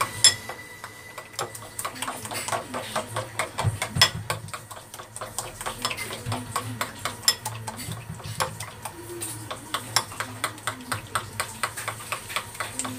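Metal spoon stirring flour batter in a porcelain bowl, clinking against the bowl in a run of light clicks, about two to three a second, over a faint low hum.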